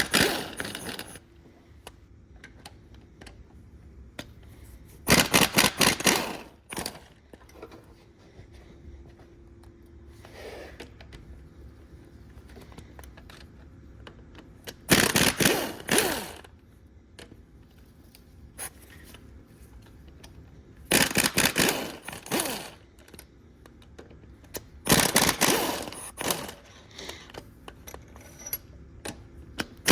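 Impact wrench hammering in four short bursts, a rapid rattle of blows each time, spinning loose the cylinder head bolts of a VW 07K engine.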